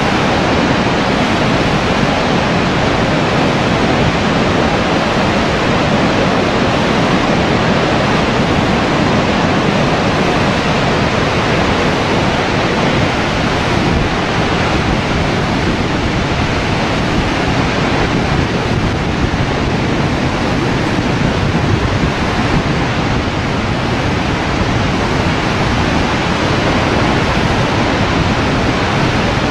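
Horseshoe Falls at Niagara: a huge volume of water pouring over the falls, heard as a loud, steady, unbroken rushing noise.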